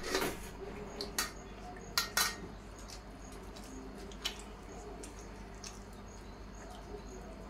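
Stainless steel plates and bowls clinking as food is served and eaten by hand, a handful of sharp metallic clinks in the first few seconds, some in quick pairs, then only a faint steady background.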